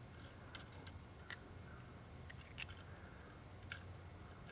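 A few faint, scattered metallic clicks and ticks from a T-handle turning a threaded steel screw-in limb rod, not yet fully seated against its flat washer.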